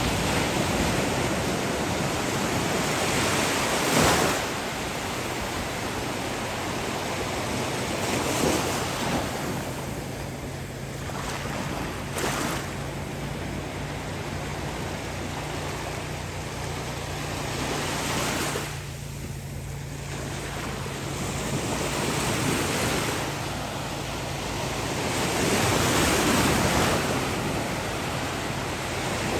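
Ocean surf: small waves breaking and washing up the beach, the rush swelling and easing every few seconds.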